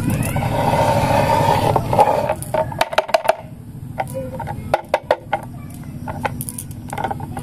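A steady rushing noise for the first two seconds or so. Then a dozen or so sharp clicks and taps as a clear plastic toy-car-shaped jar is handled and turned over in the hands.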